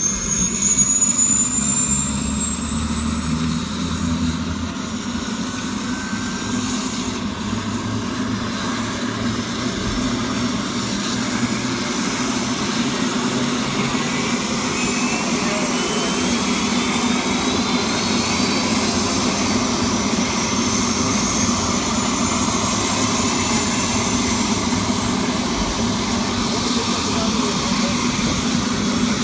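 A medical helicopter's turbine engine spooling up on the ground, with a high whine that keeps rising in pitch over a steady low drone while the main rotor turns slowly.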